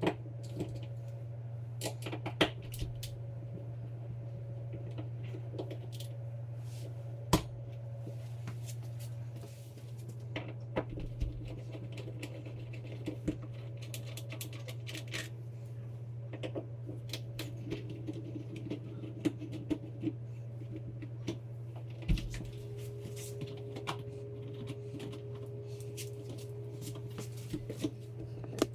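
Old door deadbolt being unscrewed and taken apart by hand: scattered clicks and light metal clinks of screws and lock parts, with a few sharper knocks, over a steady low hum.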